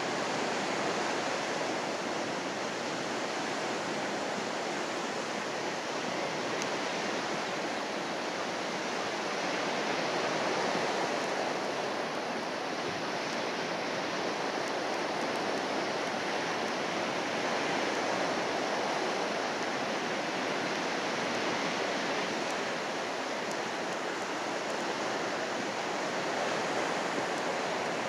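Steady rushing noise of the sea, waves washing in, swelling and easing slightly every several seconds.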